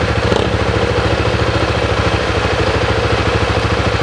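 Honda XR400R dirt bike's single-cylinder four-stroke engine running steadily at low revs with a fast, even pulse, over the rush of river water.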